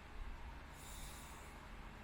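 A sleeping person breathing: one soft, airy breath about a second in, over a faint steady low hum. There is no low, rattling snore.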